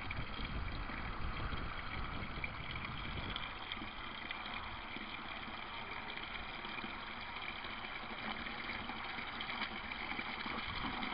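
Water from a U-siphon's outlet pipe pouring into a bucket of water, a steady splashing rush: the siphon has started and is draining the upper barrel into the lower one.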